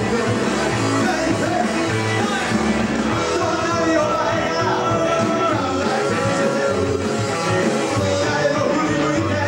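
Live band playing a British beat–style rock-and-roll song: electric guitar, bass guitar and drums, with a male lead vocal sung into the microphone.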